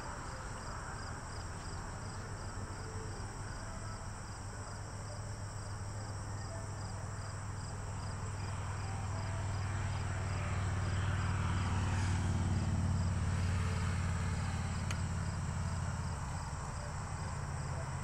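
Outdoor ambience: a low steady hum that grows louder about halfway through and eases off near the end, with faint, regular insect chirping.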